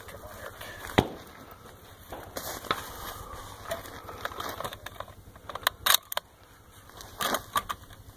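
Scattered clicks and knocks of a shooter handling gear and settling a scoped bolt-action rifle onto a wooden barricade, with one sharp knock about a second in and quick clusters of clicks near the middle and toward the end.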